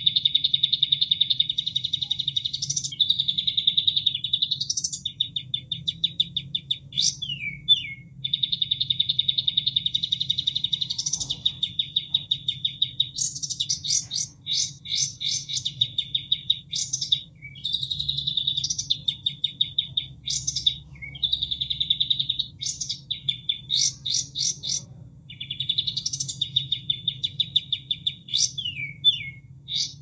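Song of a kapas tembak, a caged songbird: long rapid trills, quick upward-sweeping whistles and runs of fast chips, phrase after phrase with short breaks, over a faint steady low hum.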